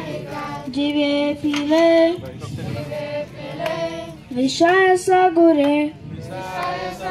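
Devotional kirtan singing in a high voice: a slow melody of long held notes and glides.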